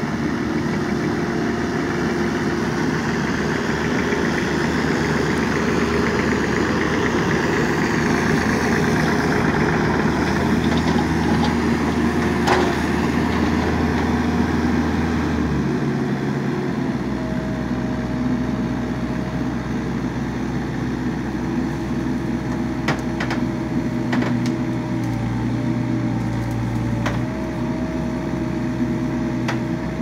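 Mini excavator's diesel engine running steadily. About halfway through the engine note drops, and a steady whine comes in as the boom is worked, with a few sharp clicks near the end.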